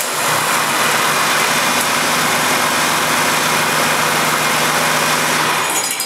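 Heavy-duty diesel engine on a run stand running steadily at idle, just after starting, to drive the alternator for a charging-circuit test. It is shut off near the end and its sound dies away.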